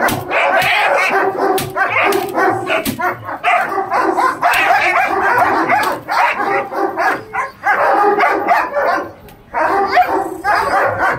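Dogs barking excitedly and almost without a break, quick barks crowding one on another, with a short lull about nine seconds in.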